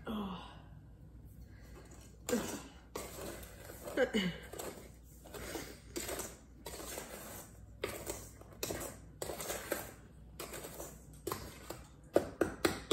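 Spatula stirring sugar and flour in a stainless steel mixing bowl: irregular scrapes and light clinks against the metal.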